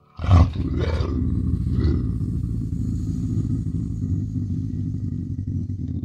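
A large animal roaring: three harsh calls in the first two seconds, followed by a steady low rumble.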